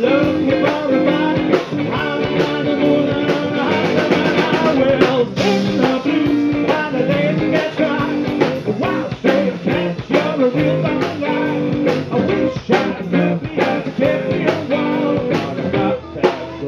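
Live band playing rockabilly-style rock and roll, with guitar over a drum kit.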